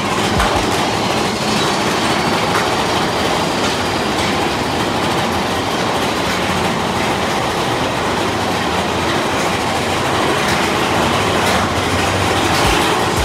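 Big Thunder Mountain Railroad's mine-train coaster cars rattling and clattering steadily along their track.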